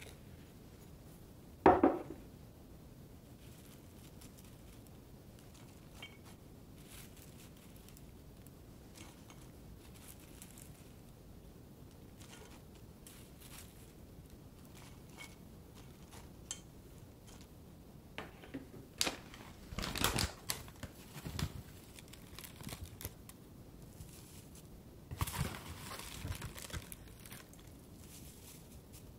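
One sharp knock of a bowl against a thin metal pot-bowl about two seconds in, ringing briefly as rice is tipped in. Later come soft rustling and crinkling in short bursts as handfuls of sprouts and then crumbled laver flakes are dropped onto the rice.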